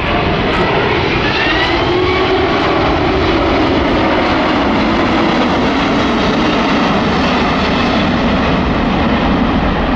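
Airbus A380's four Rolls-Royce Trent 900 turbofans passing low overhead: a loud, steady jet roar, with a turbine whine that glides up in pitch over the first couple of seconds.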